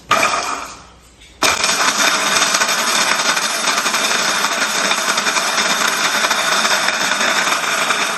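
Electric spice grinder grinding whole spices: after a brief clatter, the motor starts abruptly about a second and a half in and runs steadily with the hard spices rattling in the jar.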